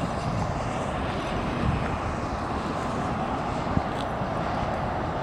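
Steady outdoor background noise: an even rumble and hiss with no distinct events, and one small click a little before the end.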